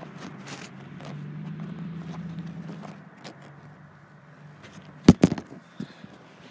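A phone being handled and jostled, with rustling and scraping over a low steady hum in the first half, then two sharp loud knocks about five seconds in as the phone tips over.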